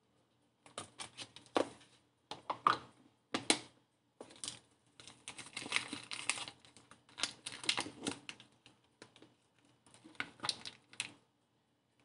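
A plastic-wrapped dishwasher detergent tablet being handled and fitted into a tabletop dishwasher's plastic detergent dispenser: irregular crinkling and clicking of plastic, with the sharpest clicks between about one and a half and three and a half seconds in.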